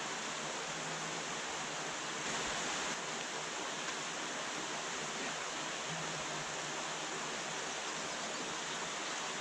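Steady rush of water spilling over a small weir into a canal.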